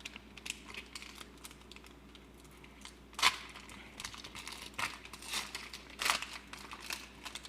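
Foil wrapper of a Pokémon card booster pack being torn open and crinkled by hand, in irregular crackles with a louder tearing rip about three seconds in and another near six seconds.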